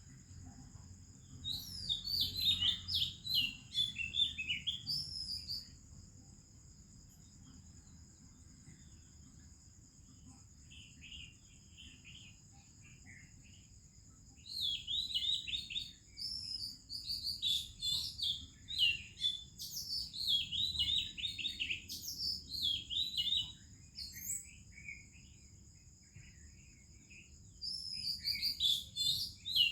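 Oriental magpie-robin singing in bouts of rich, varied whistled phrases, with quieter notes in between, over a steady high-pitched drone of insects.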